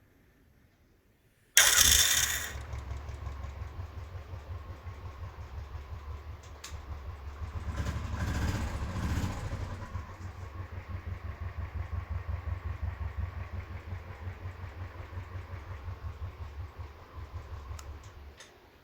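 Royal Enfield Classic 350 started on its electric self starter: a sudden loud, harsh burst about a second and a half in as it fires, then the single-cylinder engine runs with a steady low pulsing beat, gets louder for a couple of seconds midway, and dies away near the end. The owner says the self-starter sound has changed and does not know the cause.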